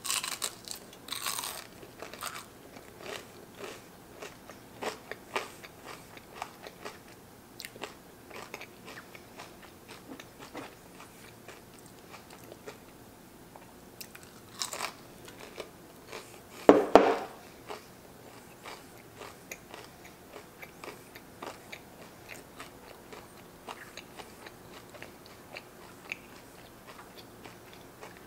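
Crunching and chewing of a crispy fried onion ring: a run of short crunches throughout, with a few louder bites, the loudest a little past the middle.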